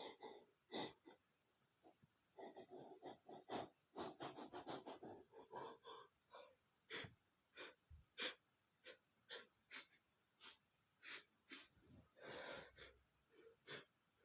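A man's sharp sniffs and gasping in-breaths as he fights off a coming sneeze: a quick irregular run of breaths in the first half, then single sniffs about half a second apart, and one longer gasp near the end.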